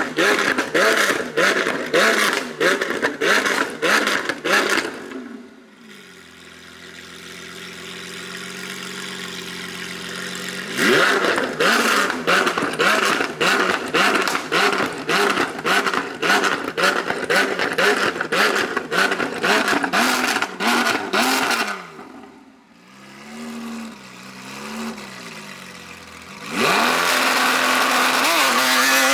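Lamborghini Aventador SVJ's 6.5-litre V12 through a Novitec exhaust, revved while standing. It is held at high revs with a rapid stutter, about five cuts a second, typical of the launch-control rev limiter. It does this twice, with a steady lower-rev run between, then a few quick blips and a loud steady high-rev pull near the end.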